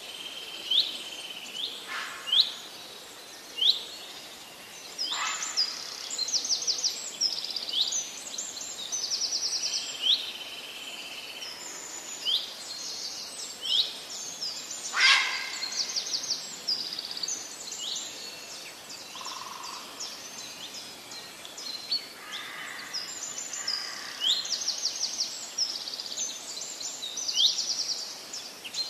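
Several small birds calling and singing together: many short high chirps and whistles and rapid trills, with one louder, sharper call about halfway through.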